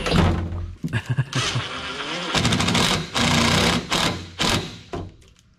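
Cordless power driver running in several short runs as it drives screws, its small motor whirring at changing speed.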